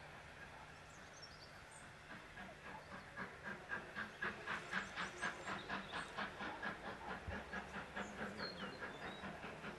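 Steam locomotive 63395, an LNER Q6 0-8-0 freight engine, working a freight train. Its exhaust beats come in faintly about two seconds in and grow louder as it approaches, then hold at an even rhythm of about four beats a second.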